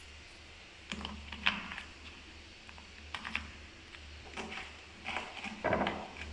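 Irregular light clicks and knocks from objects being handled, about nine or ten in all, the loudest cluster near the end, over a low steady hum.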